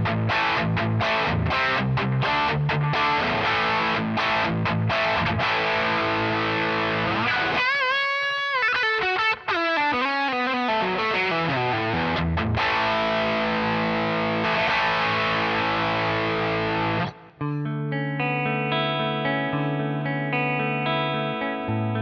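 Electric guitar played with distortion through a Nux C-5RC 5.8 GHz wireless system, its cable-tone mode switched on. Choppy chords give way to a bent, wavering lead phrase about eight seconds in, then a falling run and held chords. It stops briefly near seventeen seconds and resumes with sustained ringing notes.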